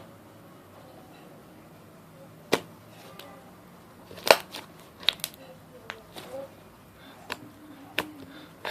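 Fluffy slime being worked by hand, its trapped air bubbles popping in sharp, short clicks, about seven scattered over several seconds, the loudest about four seconds in.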